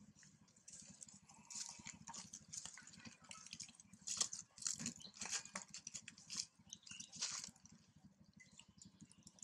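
Faint wet clicking and smacking of a newborn macaque suckling at its mother's nipple, in quick irregular clusters that are densest in the middle and die down near the end.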